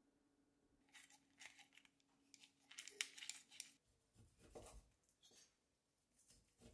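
Faint handling of a paper leaflet, crisp rustles and clicks, then a kitchen knife slicing through a block of roast beef on a wooden cutting board with a few dull strokes about four seconds in.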